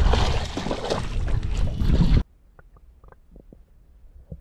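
Wind buffeting the microphone over a hooked fish splashing at the surface. About two seconds in it cuts off abruptly to the muffled hush of an underwater camera, with a few faint taps.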